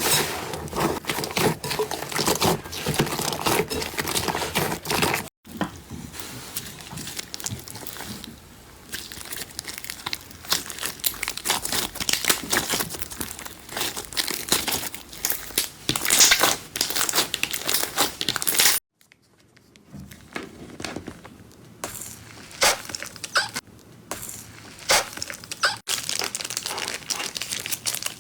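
Slime worked by hand, pressed and squeezed, giving dense crackling and crinkling, with brief breaks where one clip cuts to the next.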